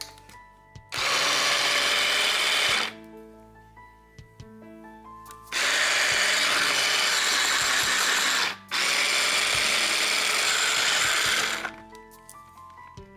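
Small electric food chopper running in three pulses of about two to three seconds each, the last two split by a very short break, chopping red onion, garlic and ginger into a spice paste.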